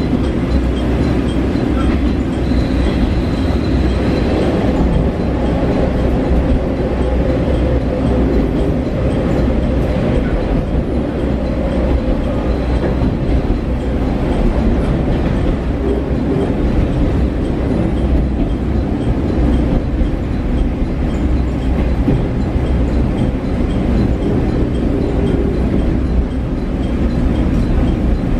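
Running noise heard inside a JR Shikoku KiHa 40 diesel railcar: a steady rumble of engine and wheels on rail with some clickety-clack, and a brief high-pitched squeal about three seconds in.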